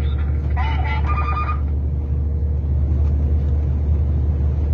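Steady low drone of a truck's engine and road noise heard inside the cab while driving, with a brief voice over it from about half a second to a second and a half in.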